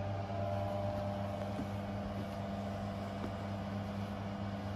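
Steady low electrical hum from an appliance running in the room, with a couple of faint ticks.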